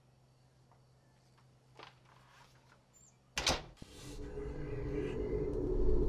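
A wooden front door shuts with a single loud bang about three and a half seconds in, after a few faint small sounds. A low, eerie horror-score drone then swells steadily louder.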